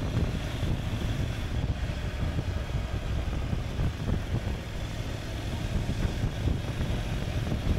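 Steady low rumble of a 2014 Honda NC750X motorcycle under way: wind on the microphone mixed with engine and road noise.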